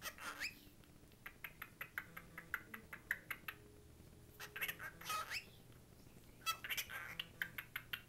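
Cockatiel chattering: a rising whistled note at the start, then a run of short clicks and chirps, and two busier bursts of chirps with rising whistles in the middle and near the end.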